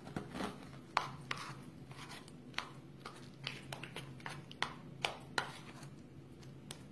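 A spoon tapping and scraping against a bowl while stirring spreadable cream cheese with chopped pistachios: faint, irregular light clicks, about two a second.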